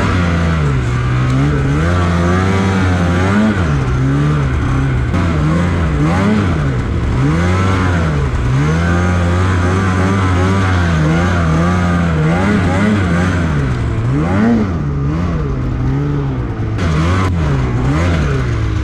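Snowmobile engine revving up and down over and over as the sled is ridden, over a steady low engine drone.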